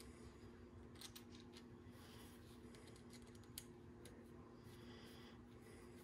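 Near silence over a steady low hum, with faint small clicks of a small screwdriver turning a 4-40 screw and nut in a 3D-printed PLA mold; one sharper click about three and a half seconds in.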